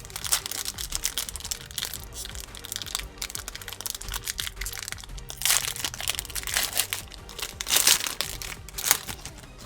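Plastic foil wrapper of a trading-card pack crinkling and being torn open in bursts, loudest in the second half, over quiet background music.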